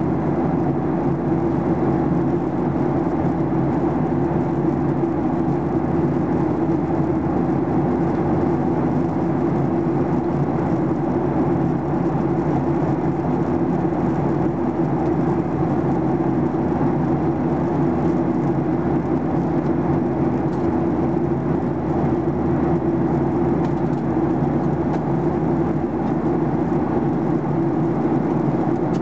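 Steady in-flight cabin noise of a Boeing 737-800, heard from inside the cabin over the wing: the CFM56-7B turbofan engines' low drone mixed with rushing airflow, unchanging throughout.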